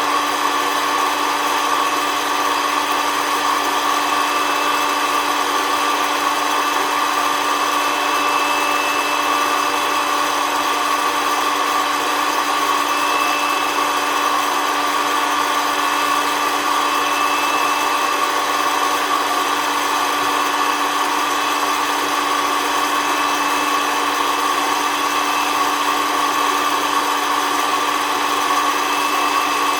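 SOUYI SY-121N hot-air coffee roaster's fan motor running steadily, blowing air up through the roasting chamber, with a constant hum and an even whirring rush.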